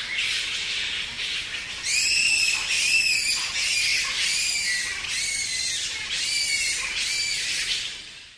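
Indian flying fox (Pteropus giganteus) calling: a high, shrill chatter, then from about two seconds in a run of screeching calls, each rising and falling, at about one a second.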